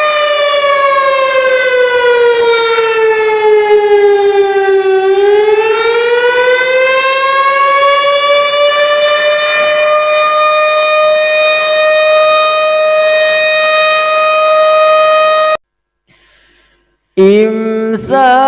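Imsak siren, the signal that the Ramadan fast begins, sounding one long wail. Its pitch falls over the first five seconds, rises back, then holds steady until it cuts off suddenly about fifteen seconds in. After a brief silence, a lower, wavering tone starts near the end.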